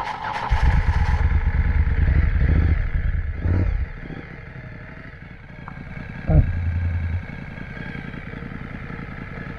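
Motorcycle engine running, with the throttle opened twice: a loud stretch of about three seconds beginning half a second in, and a shorter surge about six seconds in, dropping back to a lower steady running sound in between and afterwards.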